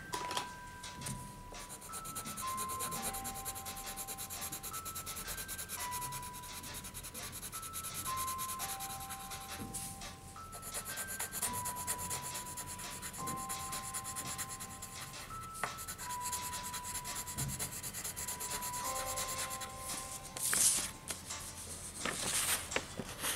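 Coloured pencil scratching rapidly back and forth on paper as it colours in, with two louder scrapes near the end. A simple background tune of single clear notes plays throughout.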